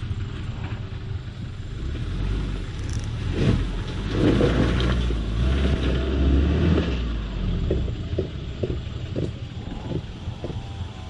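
Off-road vehicle engine rumbling as it drives over rough ground, with knocks and rattles. It swells in the middle, revving harder, then eases back to a lower run with scattered knocks.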